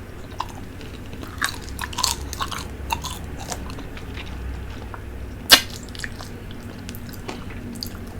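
Close-up eating sounds of a person working through a fish head in soup: wet sucking, slurping and chewing, broken by scattered short smacks, with one louder sharp smack about five and a half seconds in.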